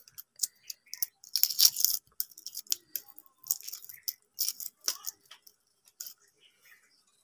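Shell of a hard-boiled egg being cracked and peeled by hand: irregular short crackles and snaps as pieces of shell break away.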